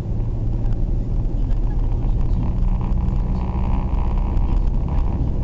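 Steady road and engine noise heard inside a moving Mercedes-Benz car's cabin at expressway speed: a constant low rumble with a steady engine hum.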